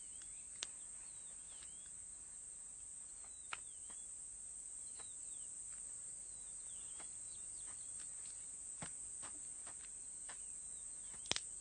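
Egyptian vulture throwing a stone at an ostrich egg: a few sharp knocks of stone on shell, several seconds apart, over a steady high insect hiss with faint chirps.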